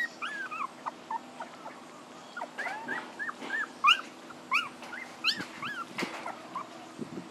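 Puppies whimpering and crying: many short, high, rising-and-falling whines in quick succession, with a brief lull about a second and a half in before they start again. The crying is puppies calling for their mother.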